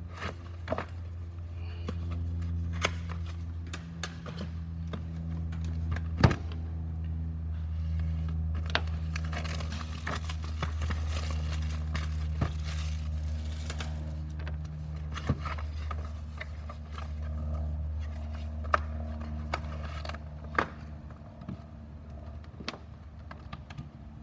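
A cardboard charger box and its packaging being handled on a rubber bench mat: scraping, crinkling and scattered knocks, with a steady low hum underneath.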